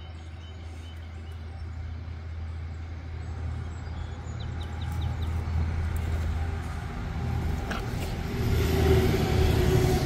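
A motor vehicle's low engine hum that grows louder to its loudest near the end, with a few faint clicks about halfway through.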